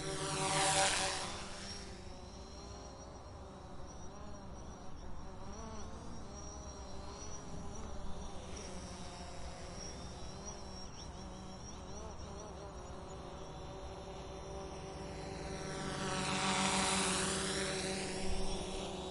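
Small drone's propellers buzzing as it flies past close twice, about a second in and again near the end. Each pass swells in loudness and the pitch drops as it goes by. Between the passes there is a steady, wavering buzz.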